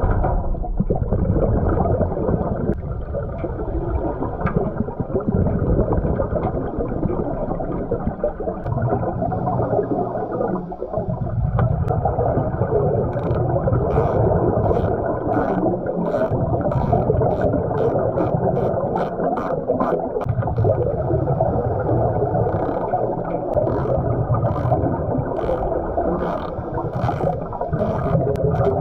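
Muffled underwater noise picked up by a submerged camera while a diver works on a Vespa scooter: a steady low rumble and water noise, joined about halfway through by a run of short, regular clicks, about two a second.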